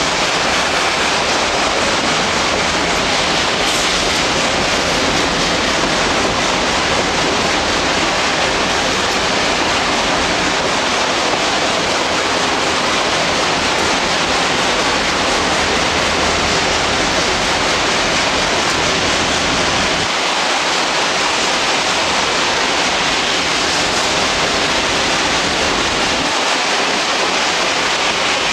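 Steady loud rush of wind buffeting the microphone, mixed with the rolling noise of a moving passenger train, heard out of an open coach window.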